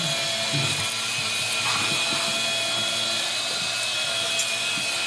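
A small electric motor running steadily with a high whine.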